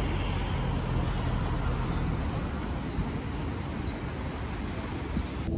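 Steady outdoor city ambience: a constant wash of distant traffic noise, heaviest in the low rumble. Around the middle come four short, high, falling chirps in quick succession.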